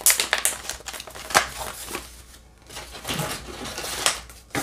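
Crinkling and clicking of a kraft paper accessory pouch being handled in both hands, with a sharper click about a second and a half in.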